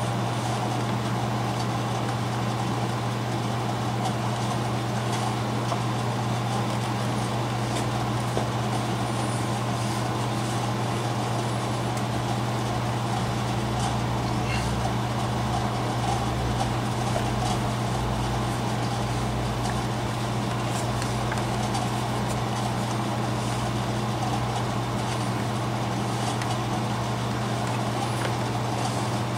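A steady low hum throughout, with a few faint ticks and rustles of thread being drawn through leather during hand-stitching.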